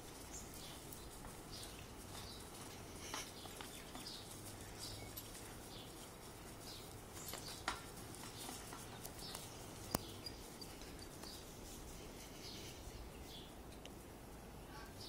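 Faint outdoor ambience with scattered short bird chirps and two sharp clicks in the middle.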